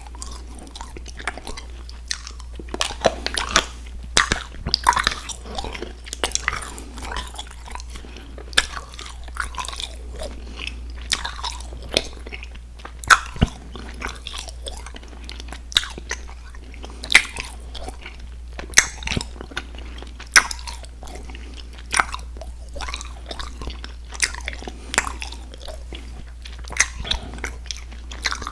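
Close-miked chewing and biting of chewy candy: irregular wet clicks and crunches, some much louder than the rest, over a steady low hum.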